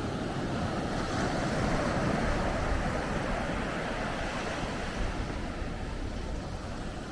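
Ocean waves breaking and washing onto the beach. One wave swells up about a second in and eases off over the following seconds, with low wind rumble on the microphone.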